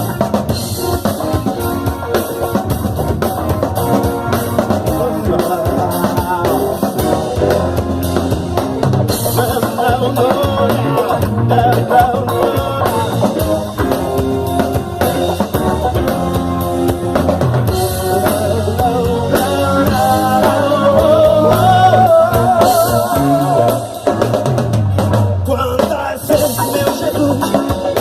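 Live band playing an instrumental passage: drum kit with snare and bass drum under keyboards, electric guitar and bass guitar.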